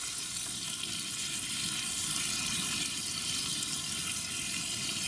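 Steak, potato wedges and green beans sizzling in a cast-iron skillet: a steady frying hiss.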